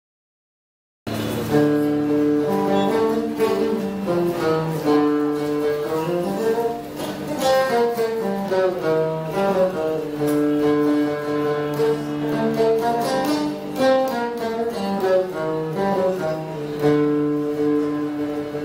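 Solo oud playing a melody of plucked notes mixed with long held notes, beginning about a second in after silence.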